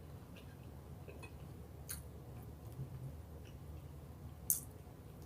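Quiet eating sounds: a person chewing food, with scattered small mouth or utensil clicks and a sharper click about four and a half seconds in.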